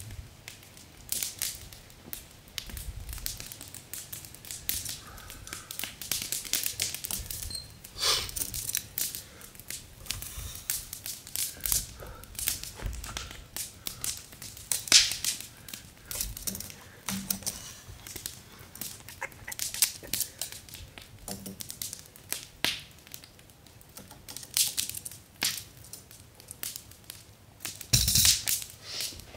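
Open wood fire crackling with irregular sharp snaps, over the knocks, scrapes and footsteps of someone handling a log post with a fire-charred end on the forest floor. A louder cluster of knocks and steps comes near the end.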